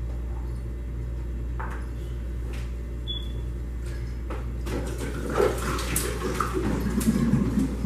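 A 5-gallon water jug is flipped onto a water cooler. From about halfway through come knocks as it is seated, then water sloshing and glugging down into the reservoir, loudest near the end.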